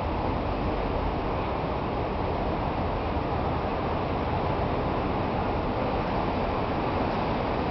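Steady outdoor background noise, a low rumble with a hiss on top and no separate events standing out.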